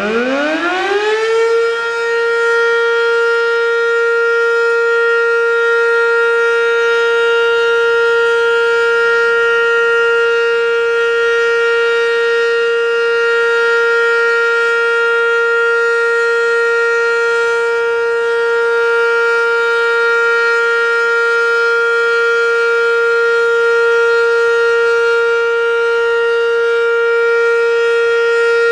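American Signal OM-117 omnidirectional outdoor warning siren, loud, finishing its wind-up about a second in and then holding a steady full-alert tone at one unchanging pitch with many overtones.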